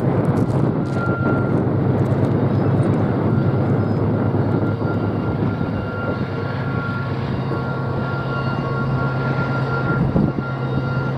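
Diesel locomotives of a freight train working under load, a steady low engine drone carried across the open desert.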